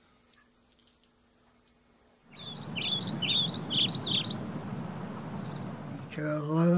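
Near silence at first, then about two seconds in a steady rushing outdoor ambience rises, with a bird singing a quick run of high, falling chirps over it for about two seconds. Near the end a man's voice starts singing.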